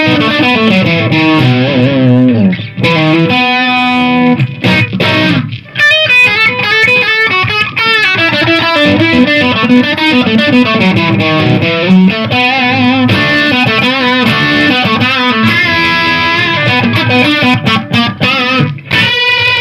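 Electric guitar played through the Lekato Tank G Black pedal's Marshall JTM45 preamp model, with the guitar's volume knob turned all the way up to drive the model harder. Mixed lines and chords, with two short breaks in the first six seconds, stopping about a second before the end.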